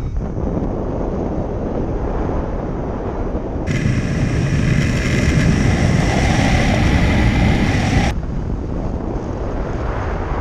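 Wind rushing loudly over the microphone of a camera mounted on a flying hang glider. From about four to eight seconds the sound cuts to a brighter, louder track with steady high whistling tones over the rush, then cuts back.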